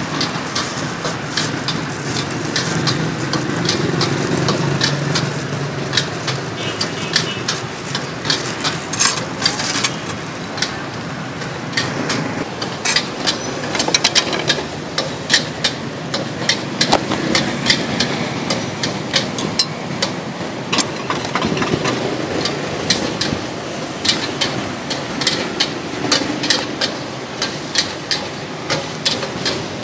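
Irregular clinks and knocks of ingredients being handled and put into a glass blender jar, over a steady engine-like hum in the background.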